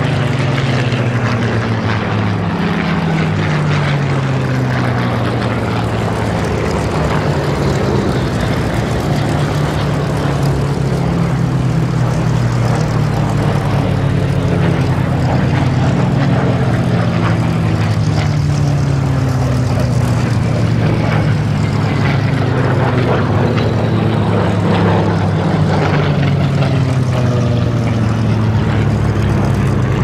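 Spitfire fighters' Rolls-Royce V12 piston engines droning as they fly past, the engine note sliding down in pitch several times as each aircraft goes by.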